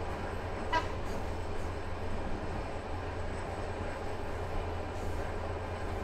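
Interior of a passenger train carriage while the train runs: a steady low drone with even track noise. A brief high squeak sounds about a second in.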